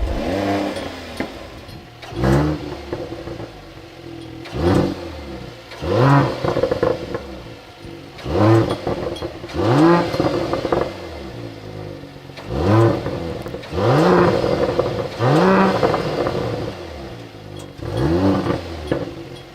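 Mercedes-AMG GLE 53's turbocharged 3.0-litre inline-six being revved in repeated throttle blips, about nine in all, each rising quickly in pitch and then dropping back.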